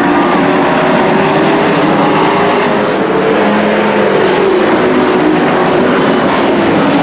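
Several racing pickup trucks' engines running at speed on a dirt oval, their tones overlapping; one engine's pitch rises and falls about halfway through as a truck goes by.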